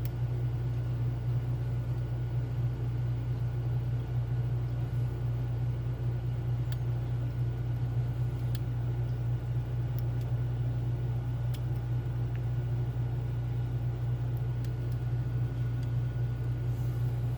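A steady low background hum, with a few faint clicks scattered through it from a pick working the pins of a Schlage Primus lock.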